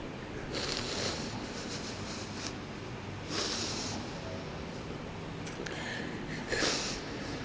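A man's audible breaths close to the microphone, several short noisy intakes over a steady background hiss, taken between phrases of a Quran recitation.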